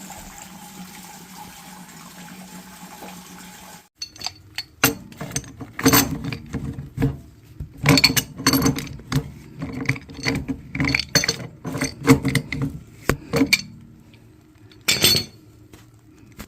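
Water running steadily for a few seconds, then a series of sharp metallic clinks and knocks, as of tools and fittings worked on while disconnecting a water heater.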